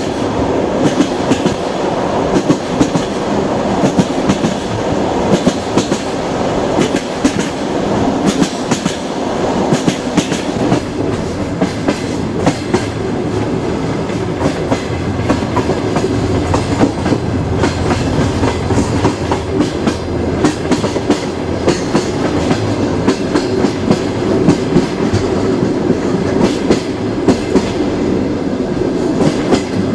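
Passenger train running along the track, its wheels clattering over the rail joints: many sharp clicks over a steady rumble.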